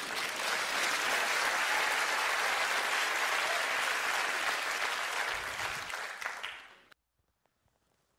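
Audience applauding, fading and then cutting off abruptly near the end.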